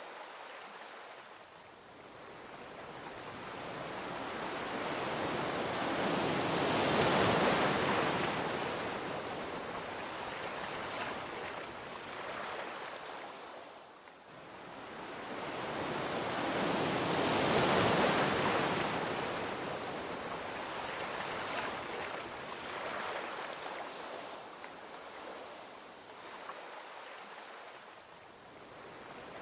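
Gentle ocean waves washing onto a beach: two slow swells, one cresting about seven seconds in and another about eighteen seconds in, each ebbing away before the next.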